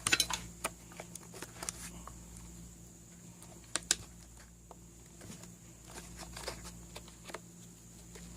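Small clicks and taps of plastic and metal parts being handled while a throttle lock spring is tensioned onto a chainsaw's throttle trigger: a quick run of clicks at the start and two sharp clicks about four seconds in, over a low steady hum.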